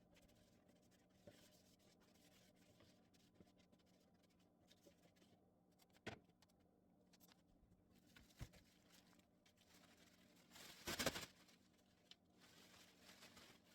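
Near silence in a small room, broken by a couple of faint knocks and, about eleven seconds in, a brief rubbing sound, the kind made by handling and wiping things while cleaning.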